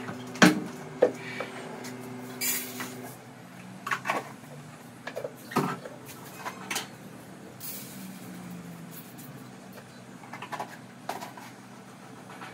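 Kitchen handling sounds: scattered knocks, clicks and clatters of containers and a cupboard being handled, the sharpest about half a second in, over a low steady hum.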